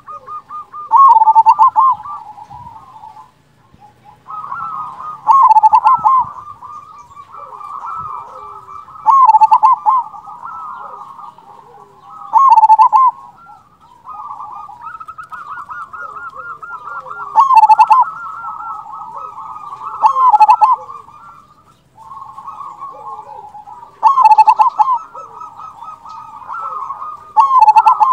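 Zebra dove (perkutut) singing its rolling coo phrase, loud and repeated about every three to four seconds, some eight times, over quieter continuous cooing.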